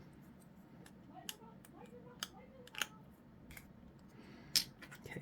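Hobby sprue cutters snipping plastic miniature parts off the frame: several separate sharp clicks, the loudest near the end.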